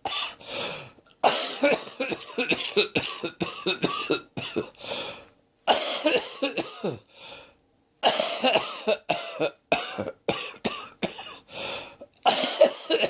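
A person's harsh coughing fit from a throat infection: runs of many short, rapid coughs in three long bouts, breaking off briefly about five seconds in and again about seven and a half seconds in.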